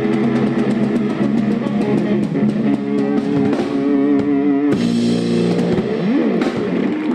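Drum kit and electric guitar playing live rock, with regular cymbal strokes under sustained guitar notes. About four and a half seconds in the low end drops away, and near the end the guitar slides its pitch up and down as the tune closes.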